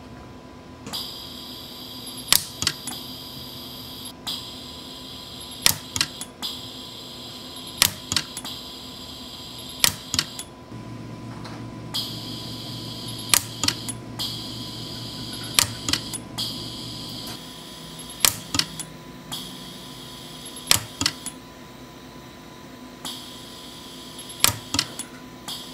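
Orion pulse arc dental welder firing weld pulses on a palladium dental framework: a sharp snap every one to two seconds, often two close together, over a steady hum and a high whine that starts and stops.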